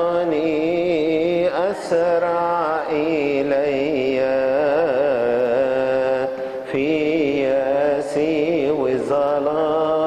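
A man singing a slow Arabic hymn in long, wavering melismatic phrases over a steady low held note, with short breaks for breath about two, six and a half and nine seconds in.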